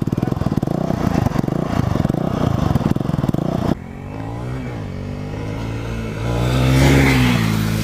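Motorcycle engine running under throttle, a dense rapid pulsing at first. About halfway through, the sound changes suddenly to a clearer engine note that rises in pitch as it revs up and then eases back down near the end.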